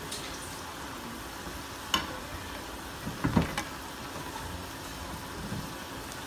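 Pakoras deep-frying in hot oil in a steel pan, a steady sizzle, with a few sharp clinks of the fork against the pan about two seconds in and again around three and a half seconds in.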